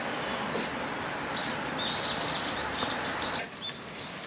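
Small birds chirping, a quick series of short rising-and-falling notes over a steady rushing background noise that drops away about three and a half seconds in.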